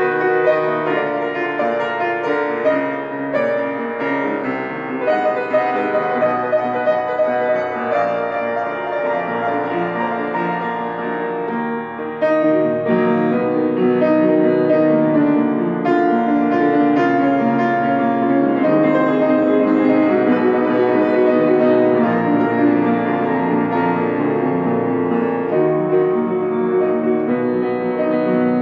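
Solo piano playing slow, full, sustained chords, stepping up to a louder passage partway through.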